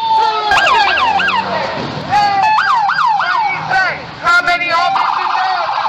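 Electronic siren sounding in quick rising-and-falling yelps, about three a second, switching to a rapid warble near the end.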